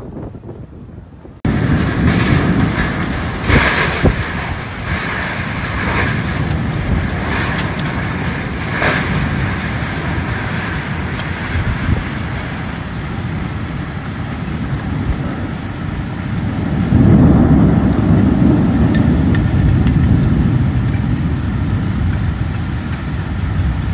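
Heavy rain pouring down in a storm, a steady dense hiss of water with splashes. It starts abruptly a second or so in, and a deep low rumble swells for a few seconds about two-thirds of the way through.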